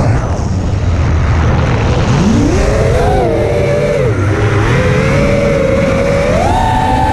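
FPV quadcopter's brushless motors whining as the throttle changes: the pitch drops at the start, climbs steeply about two seconds in, dips, holds steady, then rises again near the end. A loud rush of wind and prop wash runs underneath.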